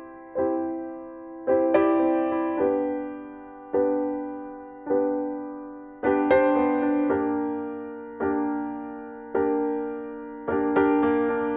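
Slow background piano music: chords struck about once a second, each ringing out and fading.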